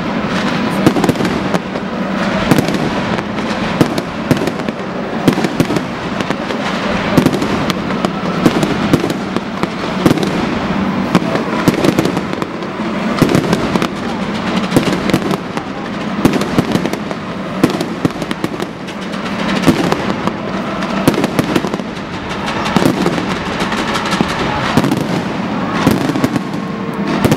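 Fireworks display: a dense, unbroken barrage of aerial shells and firecracker-like reports going off in quick succession, with frequent louder bangs.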